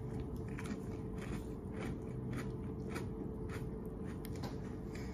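Honey graham crackers being bitten and chewed close to the microphone: a string of short, irregular crisp crunches.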